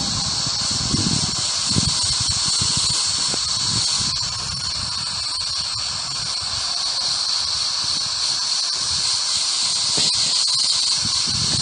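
Static hiss from the Ghost Radio ghost-box app, with a steady high-pitched whine running through it.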